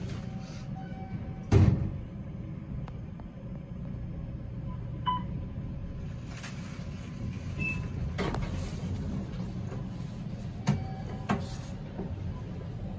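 Ride noise inside a 2006 Otis traction elevator car: a steady low hum, with one loud thud about a second and a half in and a few lighter clicks and knocks later.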